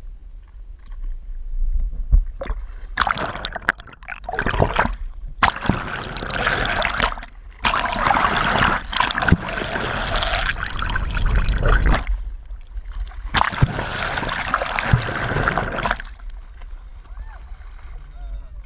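Sea water sloshing and gurgling over a waterproof action camera held at the surface, in long bursts of a few seconds as the camera dips under and comes back up, over a low rumble.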